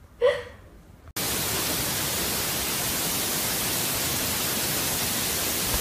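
A brief voice-like call near the start, then a loud, steady hiss like static that switches on abruptly about a second in and holds even.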